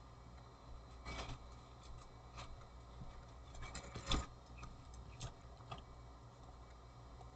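Scattered clicks and taps of a computer keyboard and mouse, a few single strokes and a quick cluster about four seconds in that holds the loudest click, over a faint steady low hum.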